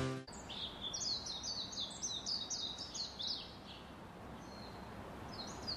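A bird calling: a quick run of short, high chirps, each falling in pitch, about three a second for some three seconds, starting again near the end.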